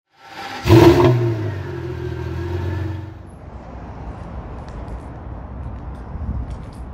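A motor vehicle engine comes in sharply about a second in and runs for about two seconds with a slightly falling pitch, then stops. A low, steady outdoor rumble follows.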